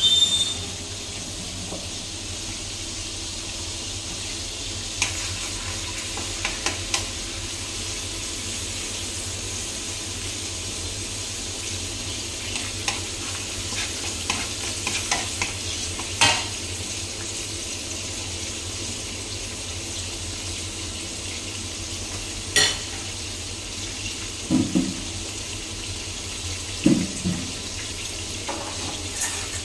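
Minced garlic sizzling steadily in hot oil in a pan, frying until fragrant, with scattered clinks and a few knocks of a utensil against the pan.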